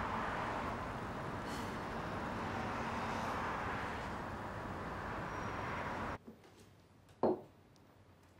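Steady road traffic and car noise, cut off abruptly about six seconds in to a quiet room tone. About a second later comes a single short thump.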